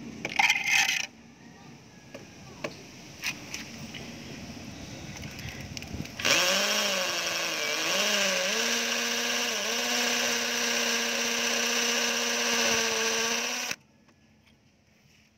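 A few sharp knocks in the first second. Then, about six seconds in, a Bosch GSB 120-LI cordless impact drill runs in hammer mode, boring a masonry bit into a concrete floor. The motor whine dips in pitch a few times as the bit bites, holds steady for several seconds, and cuts off suddenly when the trigger is released.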